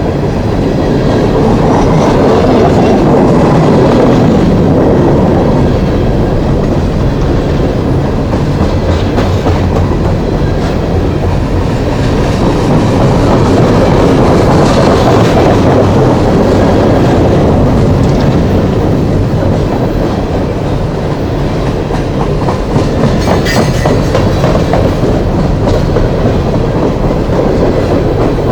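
Long coal train's cars rolling by on the main line: a loud, steady rumble of steel wheels on the rails that swells and eases slightly.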